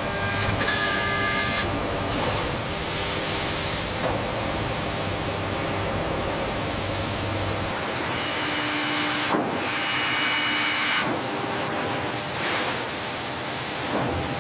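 Machine ambience: a steady hissing noise whose character shifts every few seconds, with a faint high whine near the start and another whine from about two-thirds of the way in.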